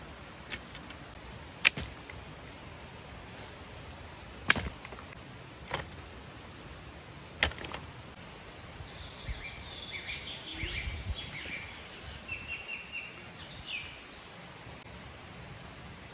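Sharp cracks of dry wood, five of them, irregularly spaced over the first seven seconds, as sticks are worked by hand. From about eight seconds in, forest ambience takes over: a steady high buzz with a run of short chirps, and the low clatter of branches being gathered.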